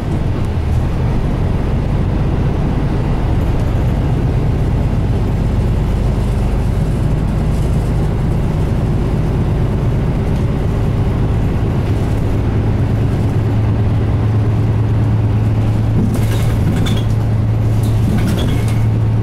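Mitsubishi Fuso Aero Star KL-MP37JK city bus under way, heard inside the cabin: its 6M70 turbo diesel engine and road noise. About twelve seconds in the engine settles into a steady low hum, and a few short clicks come near the end.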